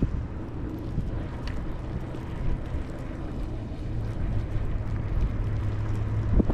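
Ninebot electric scooter riding along: a steady low hum from the motor under a rumble of wind and tyre noise on the microphone.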